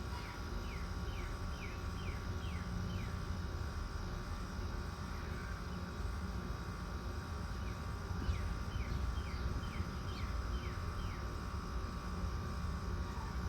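Central air conditioner condenser units running with a steady hum, R-22 systems on a test run. A songbird sings two quick runs of descending chirps, one near the start and one about eight seconds in.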